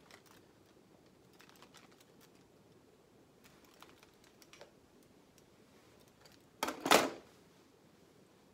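Light, irregular clicking from a Marcel curling iron and comb being worked through hair. About seven seconds in comes a short, loud hissing burst in two quick parts.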